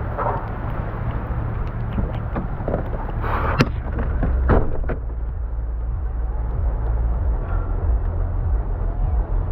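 Steady low rumble of a running vehicle, with a few sharp knocks, the loudest about three and a half seconds in and two more around four and a half seconds.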